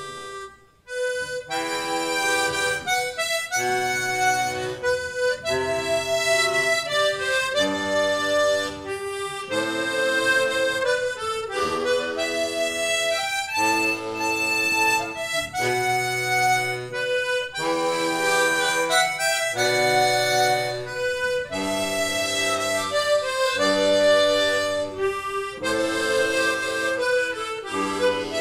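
Children's harmonica ensemble playing a tune in sustained, chord-backed phrases with a low bass line underneath. There is a short break about a second in, then the playing carries on.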